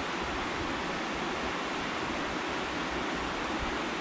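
Steady, even hiss of background noise with no distinct events in it.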